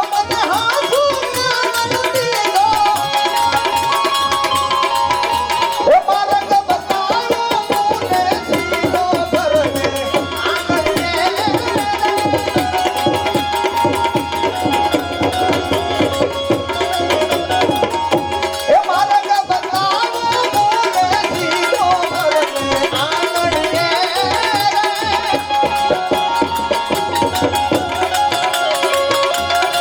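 Instrumental interlude of Gujarati devotional folk music: tabla playing a steady, busy rhythm under a gliding melody instrument.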